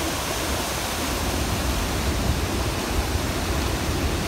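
Montmorency Falls crashing into its plunge pool: a steady rush of falling water with a deep rumble underneath.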